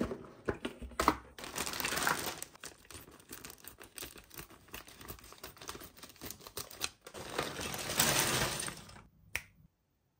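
Toy packaging handled and opened: plastic and paper crinkling and tearing, with many sharp clicks, cutting off abruptly near the end.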